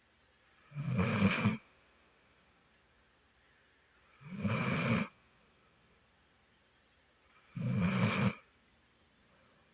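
Snoring: three loud snores, each a little under a second long, coming about every three and a half seconds in a slow, even rhythm.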